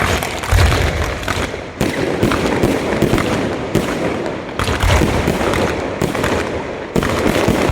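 Aerial fireworks display: shells bursting in quick succession, a dense crackle of small reports with heavier bangs every second or two over a continuous low rumble.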